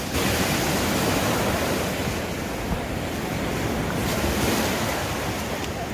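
Ocean surf washing up on a sandy beach, a steady rush of breaking waves, with wind buffeting the microphone.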